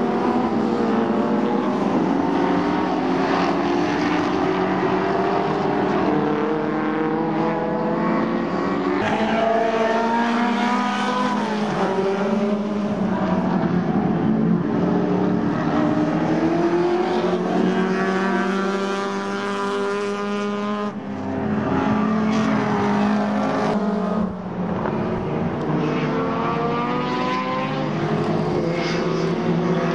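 Historic Group A and Group C touring cars racing through a bend, several engines at once, among them a V8 Falcon and a small four-cylinder Mini. Their pitch climbs as each accelerates, drops at gear changes, and rises and falls as the cars pass one after another.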